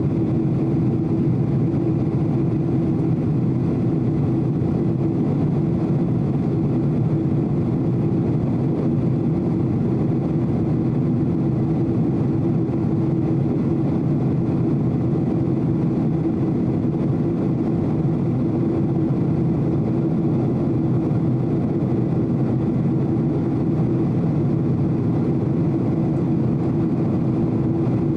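Cabin noise of a Boeing 767-300 airliner in flight: the steady drone of the engines and rushing airflow, with a constant low hum running through it.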